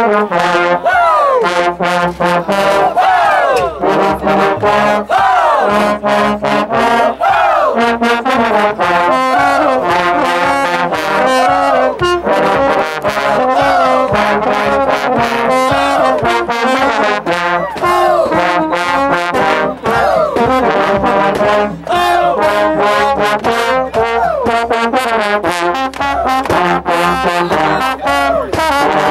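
A high school trombone section playing loudly together, with many sliding glissandi that rise and fall between stacked chord notes.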